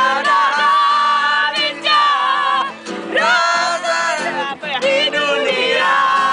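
A group of men and women singing a pop song together in casual unison, accompanied by a strummed acoustic guitar.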